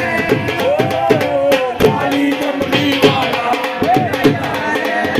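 Singing over drum beats, with the crowd clapping along in rhythm.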